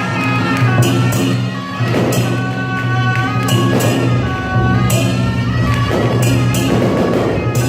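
Music: held melody notes over a steady low drone, with regular percussion strikes.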